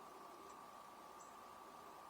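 Near silence: a faint hiss with a faint steady high-pitched tone.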